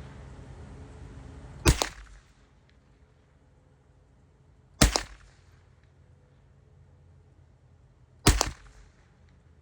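Three single gunshots from a Mossberg 715T .22 rifle, each a sharp crack with a short echo, spaced about three seconds apart as aimed shots at a paper target.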